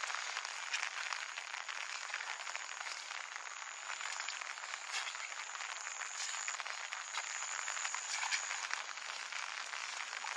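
Steady rain pattering and hissing in the open, a dense crackle of countless small drops. A faint thin high tone comes and goes in the middle.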